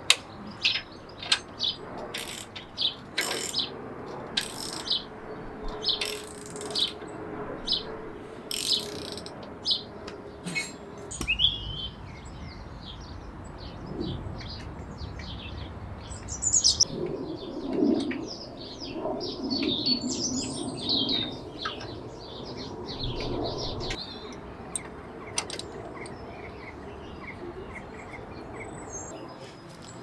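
Garden songbirds chirping and singing, mixed with irregular sharp metallic clicks and clinks of hand tools working the motorcycle's rear axle and chain adjuster, thickest in the first third.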